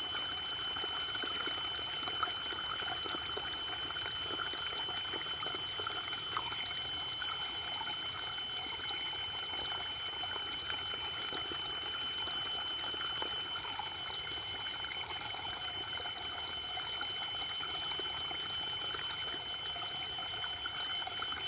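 Waterfall: steady rushing, splashing water, with thin high-pitched tones held constant beneath it.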